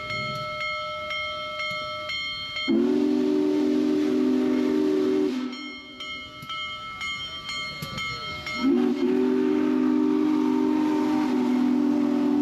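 Union Pacific Big Boy 4014 steam locomotive's whistle sounding two long blasts, a chord of several notes each, the second longer than the first, as the engine rolls past.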